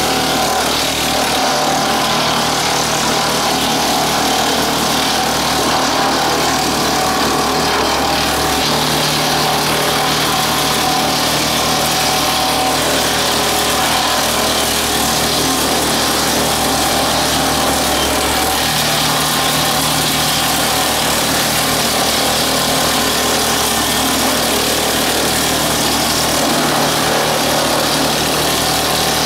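A tractor engine drives a WoodMaxx WM-8M PTO wood chipper, which runs steadily. The low hum shifts slightly twice.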